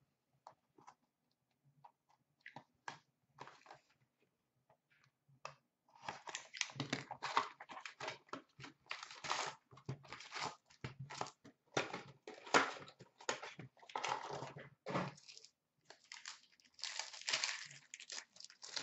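A cardboard hockey-card hobby box is opened and its wrapped packs handled: a few small clicks and taps at first, then from about six seconds in a dense run of irregular crinkling, tearing and rustling of wrapper and cardboard.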